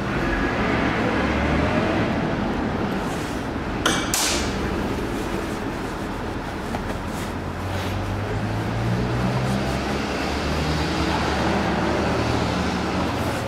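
Steady workshop background hum, with light handling noises and one sharp metallic click about four seconds in from hand work on an engine's connecting rod and bearing cap.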